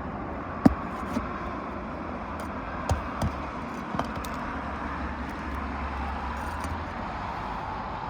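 A few sharp knocks and taps of a roofer's tools working nails out of asphalt shingles, the loudest a bit under a second in, over a steady outdoor background noise.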